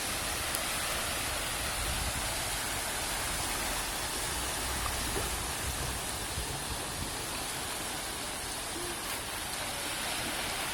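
Adriatic Sea surf washing ashore: a steady, even rush of water without distinct breaking waves.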